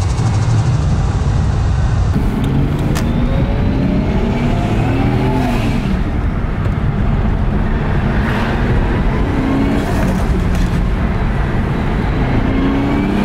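Turbocharged 1JZ-GTE straight-six in a Toyota Chaser heard from inside the cabin, revving up and dropping back again and again as the car accelerates and shifts through the gears.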